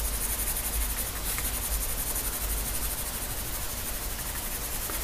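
Pencil hatching on drawing paper: quick, even back-and-forth strokes scratching steadily as a band of shading is filled in.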